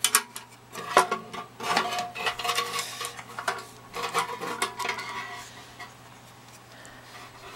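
Sheet-metal case and chassis of a vintage Eico 235 vacuum-tube voltmeter being handled and turned around, with a run of metallic clanks, clicks and rattles that dies down after about five seconds.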